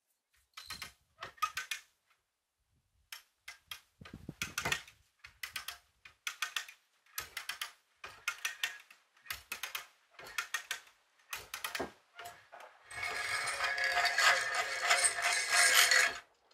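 Hand ratchet on a strap being cranked in short strokes, each stroke a quick run of clicks, repeated about once a second as the strap is tensioned. Near the end comes a longer, denser and louder rasping run of about three seconds.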